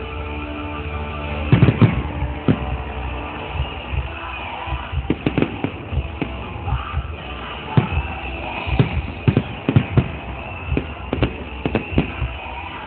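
Fireworks going off in a run of sharp, irregular bangs, sometimes several a second, with the loudest cluster about a second and a half in, over music playing.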